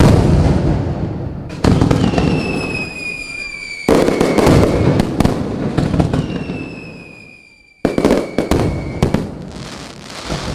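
Fireworks going off in four loud bursts, each trailing off into crackling, with two long whistles that fall slowly in pitch.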